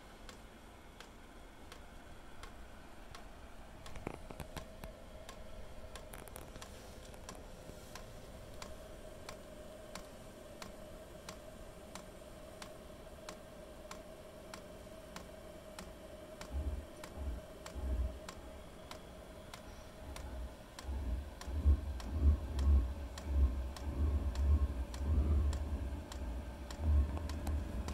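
Chinese diesel air heater's fuel dosing pump ticking at about three clicks a second, each click a pulse of fuel (here E85) into the burner, over a faint steady hum from the heater's fan. In the last ten seconds or so, low gusty rumbling buffets the microphone and becomes the loudest sound.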